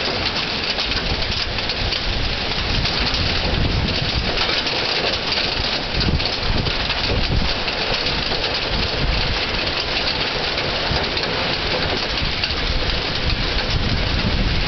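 Hail pelting down on lawns, parked cars and foliage: a dense, steady patter of countless small hits. Wind buffets the microphone, adding a low rumble.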